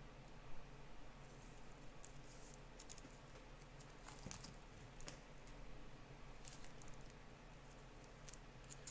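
Faint handling of trading cards: scattered light clicks and rustles as cards are slid and shuffled, over a steady low electrical hum.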